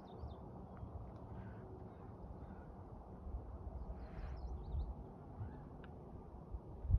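A few faint bird calls, the clearest a harsh call mixed with short chirps about four seconds in, over a steady low rumble.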